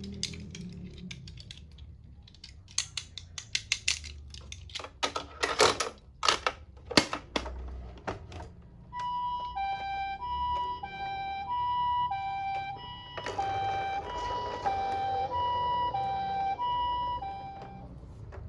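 A toy ambulance's electronic siren sounding a two-tone hi-lo wail, high and low notes alternating about once a second, which starts about nine seconds in. Before it comes a run of sharp clicks and clatters.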